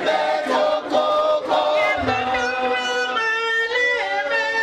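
Mixed choir of men and women singing a Dholuo hymn together, holding long notes.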